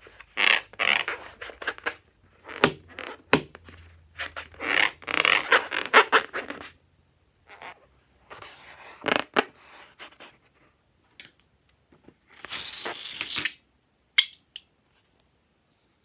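Rubber balloon squeaking and rubbing as it is handled, in irregular bursts with a few sharp clicks.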